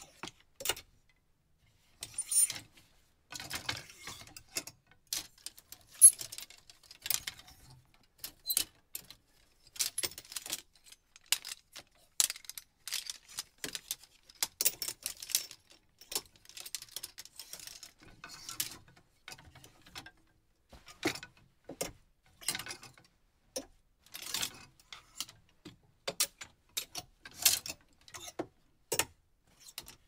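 Closet hangers being pushed and slid along a closet rod, metal scraping and clinking in a quick, irregular run of short clicks and scrapes.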